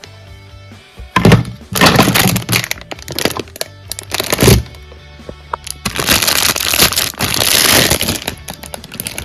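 Packaging being unwrapped and pulled apart: several loud crackling, tearing bursts over background music, the longest lasting about two seconds near the end.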